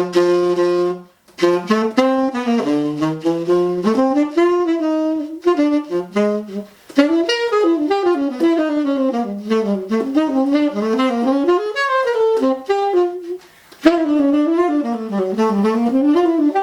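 Buescher Aristocrat tenor saxophone with a used Rico 2.5 reed on a Brilhart mouthpiece, playing quick melodic jazz runs in several phrases broken by short pauses. The player is testing the reed and finds it plays about as hard as a 3.5.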